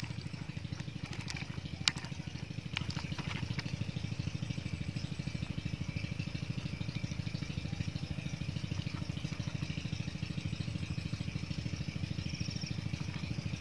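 A small engine running steadily nearby, a low even throb. A few sharp clicks and crinkles of a plastic bag being handled come in the first few seconds.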